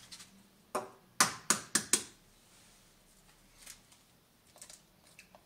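Eggs clicking against a plastic egg tray and against each other as they are picked out. Four sharp clicks come in quick succession a little past a second in, then a few faint ticks.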